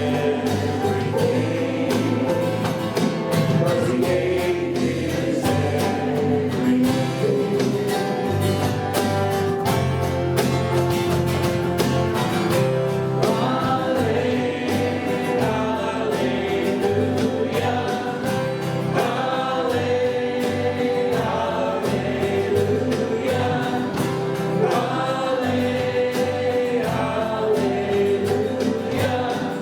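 Church worship band and singers performing a gospel-style praise song, voices singing together over instruments and a steady drum beat.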